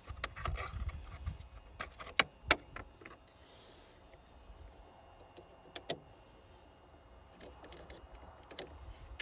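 Power-inverter battery cables and clamps being handled while they are hooked to a car battery's terminals: light rattling, with a few sharp clicks in two close pairs about two and six seconds in.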